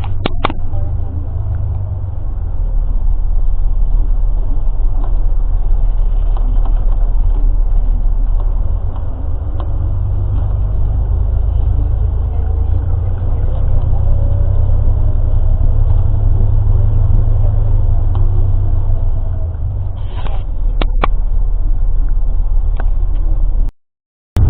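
Steady low rumble of a moving road vehicle, with faint engine tones gliding up and down and a few light clicks; the sound cuts out abruptly for a moment near the end.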